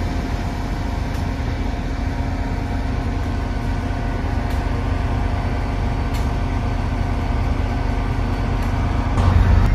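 Train at a station running steadily: a low engine rumble with a steady whine over it, a few faint clicks, and a little louder near the end.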